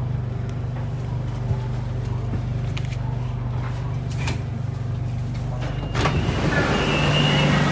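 BTS Skytrain train heard from inside the carriage: a steady low running hum with a few sharp clicks. About six seconds in the noise gets louder and fuller, and a high whine comes and goes.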